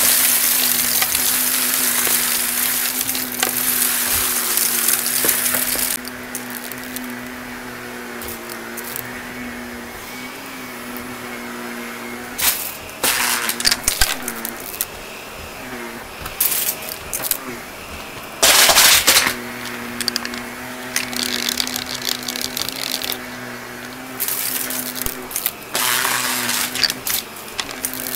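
Shark Navigator XL upright vacuum running steadily, sucking up a dry mix of glitter, confetti and grit from carpet. For the first six seconds the pickup gives a loud crackling hiss; after that it is quieter, broken by short bursts of debris going up the vacuum, the loudest about two-thirds of the way through.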